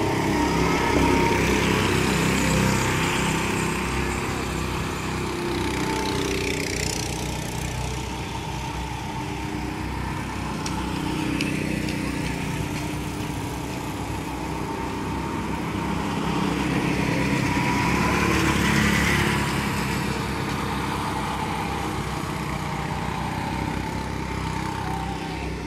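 Several go-kart engines running as the karts lap the track, a steady drone that swells as karts pass close by, once near the start and again about 19 seconds in, and fades as they move off round the circuit.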